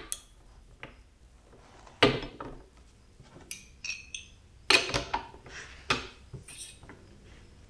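Metallic clanks and clinks of a torque wrench and socket being worked on bolts in a steel test fixture while breaking them loose: a handful of sharp separate strikes, two of them close together about five seconds in.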